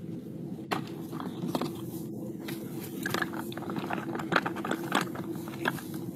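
Dogs working puzzle feeders: irregular clacks and knocks as they nose and paw at the plastic and wooden pieces, with chewing on the food they get out, over a steady low background noise.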